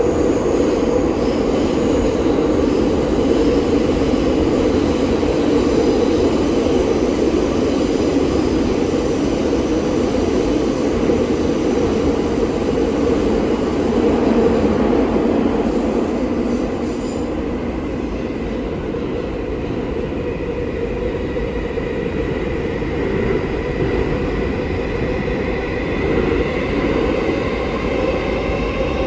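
New York City Subway 7 train running through the tunnel, heard from inside the car: a loud, steady rumble of wheels on rail. The rumble eases a little past the halfway point, and thin high squealing tones come in during the second half.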